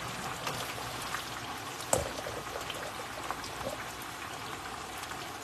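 Chicken wings deep-frying in a pot of hot oil: a steady bubbling sizzle with scattered small pops, and one louder knock about two seconds in.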